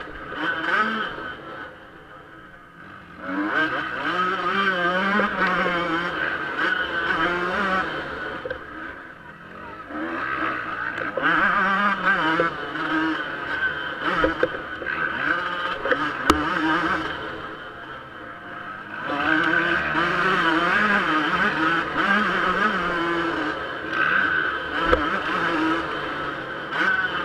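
Yamaha YZ125 two-stroke motocross engine revving hard under racing throttle, its pitch climbing and falling again and again as it is worked through the track. It drops off briefly about two seconds in, again around nine seconds and around eighteen, and a few sharp clicks cut through.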